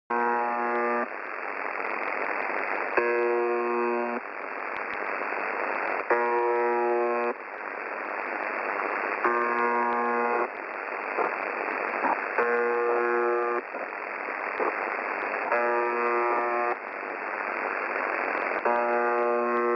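Shortwave radio reception of UVB-76, the Russian 'Buzzer' station: a harsh buzz tone about a second long, repeated about every three seconds, over steady static hiss.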